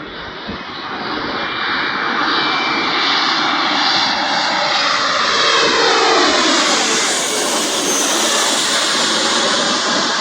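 Jet airliner passing low overhead. Its engine noise builds over the first couple of seconds, and about halfway through the engine whine drops in pitch as it goes by.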